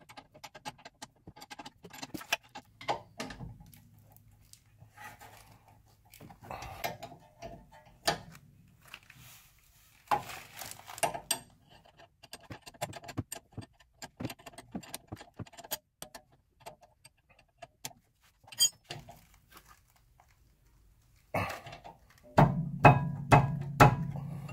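Steel combination wrenches clicking and clinking on brake caliper bolts while the 13 mm bolts are tightened against a 19 mm backing wrench. The clicks are irregular and come in clusters, louder and faster near the end over a low hum.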